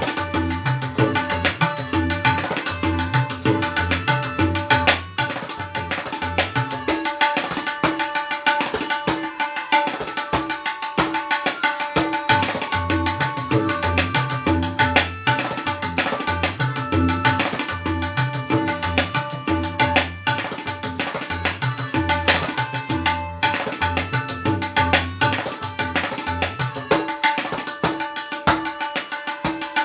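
Tabla played solo in a fast, dense stream of strokes: crisp ringing strokes on the treble drum and deep resonant strokes on the bass drum, which recur in a regular cycle. A faint steady pitched accompaniment sounds underneath.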